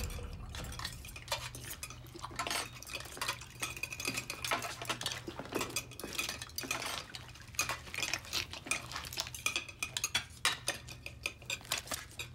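Metal knives and forks scraping and clinking against plates, many quick, irregular strokes from several diners eating at once, over a low steady hum.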